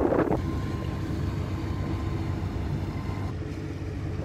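Boat engine running steadily, a low hum, after a louder rush of wind and water that cuts off just after the start. A faint steady whine stops about three seconds in.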